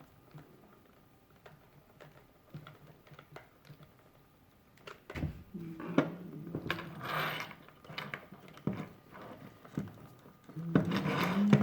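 Small clicks and rattles of a plastic toy mechanism being handled, joined about five seconds in by a low pitched hum that steps between a few notes, with sharper clicks and a louder rush near the end.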